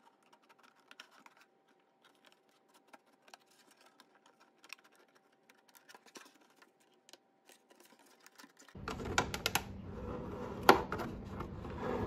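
Scissors snipping through the thin plastic of a gallon milk jug: a run of small clicks, faint at first and louder from about nine seconds in.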